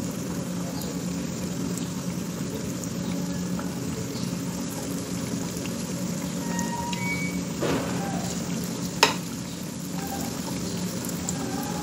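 Chana dal patties deep-frying in ghee in a steel kadhai: a steady sizzle and bubbling of the oil over a low steady hum. A single sharp click sounds about three-quarters of the way through.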